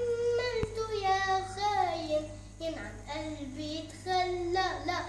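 A young girl singing solo in Arabic, holding long notes that slide and bend in pitch, with short breaths between phrases.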